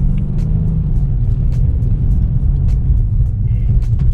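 Steady low road and engine rumble inside the cabin of a moving BMW 328i, driven in sport mode, with faint light clicks over it.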